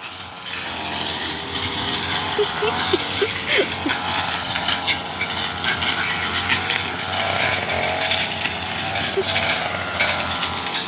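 Petrol brush cutter running steadily at high speed, cutting through corn stalks.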